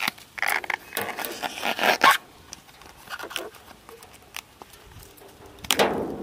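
Banana blossom being peeled by hand, its stiff bracts torn back and the florets pulled away: a few short tearing, rustling sounds in the first two seconds and another near the end.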